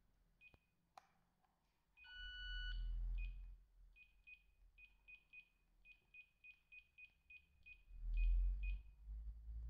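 Samsung SP-R5210pp cordless handset's keypad beeps: a run of short, high, same-pitched beeps, about three a second, as its buttons are pressed to scroll the menu, with one longer, fuller tone about two seconds in. Low rumbles of the handset being handled come twice, around the longer tone and near the end.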